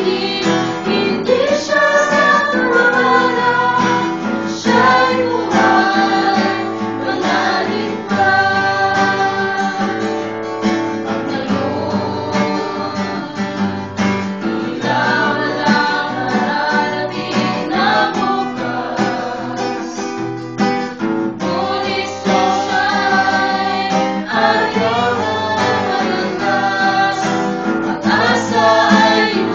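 A song sung with strummed acoustic guitar accompaniment.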